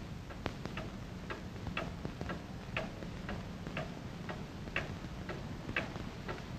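Clock ticking steadily, about two to three ticks a second, some ticks louder than others.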